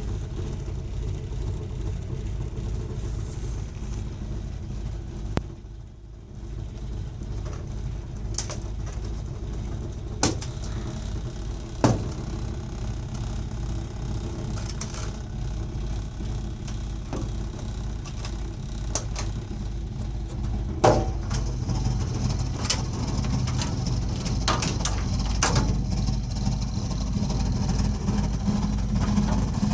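Burnham Alpine gas boiler making a loud noise while running: a steady low drone that grows louder near the end, with a few sharp clicks along the way.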